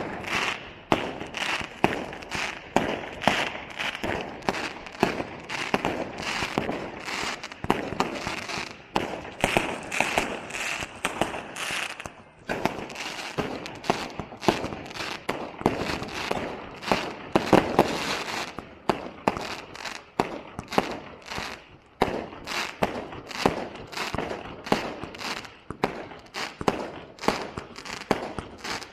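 Fireworks show: a dense, continuous run of bangs and pops from bursting shells, with crackling in between.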